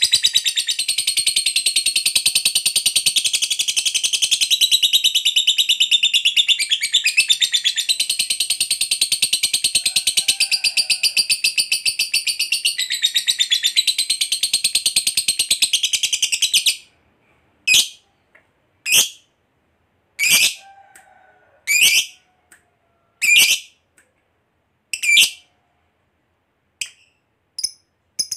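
Masked lovebird giving a long 'ngekek': an unbroken, very fast, high-pitched chattering trill lasting about seventeen seconds. It cuts off abruptly, and the bird then gives a string of short, sharp single chirps about one every second and a half.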